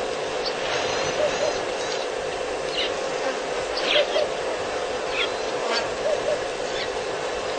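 Bush ambience: a bird repeats a soft two-note hoot every second or two, with short high chirps from other birds over a steady insect drone.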